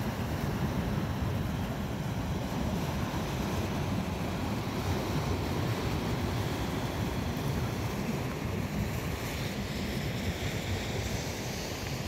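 Sea waves breaking and washing among boulders on a rocky shore, a steady surf, with wind rumbling on the microphone.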